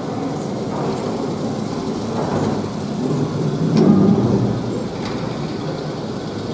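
Wuppertal Schwebebahn suspended monorail car moving slowly past at close range, its steel wheels rumbling along the overhead rail. It swells louder with a sharp click about four seconds in.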